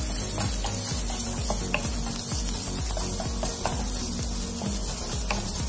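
Sliced onions sizzling in hot cooking oil in a wok while a wooden spatula stirs and scrapes them, with short light taps of the spatula on the pan, over a steady low hum.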